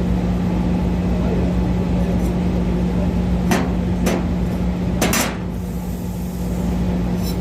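Steady machine hum with a strong low tone, with three or four sharp clicks or knocks in the middle.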